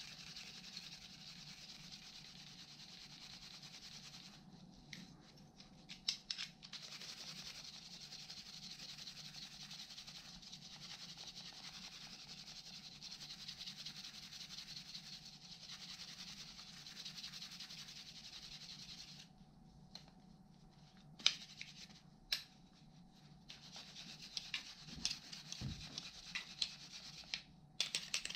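Steady scratchy rubbing and scraping as a rusty metal hand tool is worked over in gloved hands, broken by a few sharp clicks about six seconds in. After about nineteen seconds the rubbing stops and only scattered clicks and knocks of the metal parts being handled remain.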